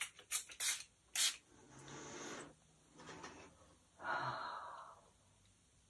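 Finger-pump spray bottle of sage room spray misting in about five quick hissing puffs in the first second or so, followed by slow deep breaths drawing in the scent, the longest about four seconds in.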